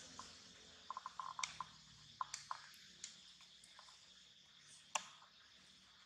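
Faint, quiet forest ambience with a steady high hiss, broken by scattered short clicks and crackles of dry leaf litter being stirred as a baby macaque moves about on it. There is a small cluster of crackles about a second in and a sharper single click near the end.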